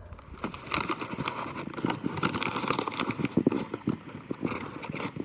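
Packing a sold item for shipping: quick, irregular knocking and clattering with rustling and crackling, as of handling a cardboard box and packing material.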